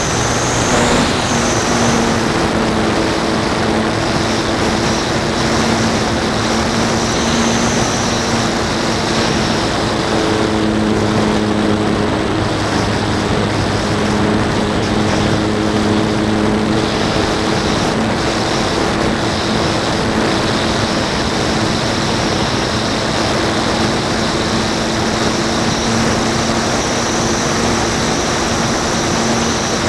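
Radio-controlled model airplane's motor and propeller running steadily, with a humming drone and a high whine that shift slightly in pitch with throttle, heard from a camera on the plane's nose under heavy wind rush over the microphone.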